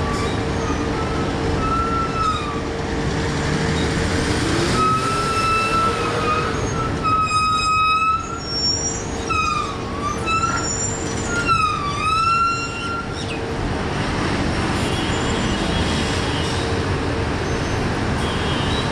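Vehicle and ferry engines running steadily under a constant hum. From about two to thirteen seconds in, a series of high, siren-like gliding tones rises and dips several times, then stops.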